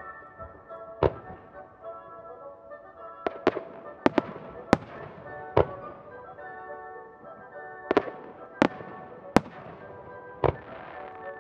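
Aerial fireworks shells bursting in sharp bangs, about a dozen at irregular spacing, some in quick pairs, over music playing underneath.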